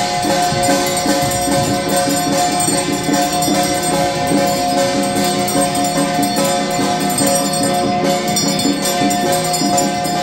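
Loud, continuous music: jingling percussion over steady sustained ringing tones, with no pauses.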